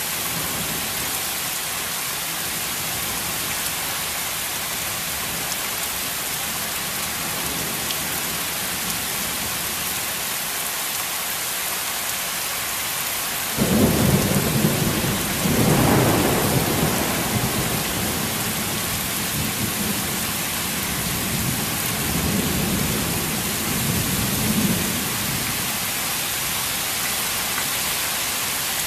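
Heavy rain falling steadily. About halfway through, a sudden clap of thunder breaks in, then rolling rumbles that swell and fade for about ten seconds before only the rain is left.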